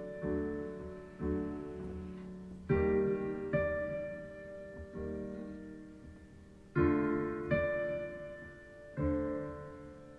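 Slow solo piano music: chords struck one after another, each left to ring and die away, getting quieter toward the end.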